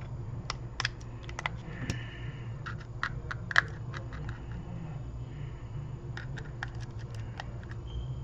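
Light, irregular clicks and taps of small tools and phone parts being handled on a repair bench, one louder tap about three and a half seconds in, over a steady low hum.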